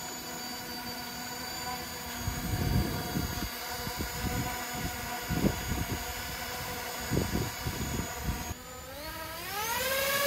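DJI FPV quadcopter's motors and propellers spinning at idle with a steady whine, with irregular low thumps from about two seconds in. Near the end the motor whine rises quickly in pitch and wavers as the drone spools up for takeoff.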